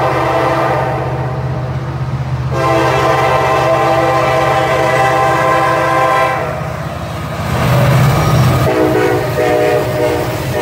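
Diesel freight locomotive horn sounding a long blast that grows louder about two and a half seconds in, then a second blast near the end, the warning signal for a grade crossing. Under it the locomotives' diesel engines rumble, loudest as they pass about eight seconds in.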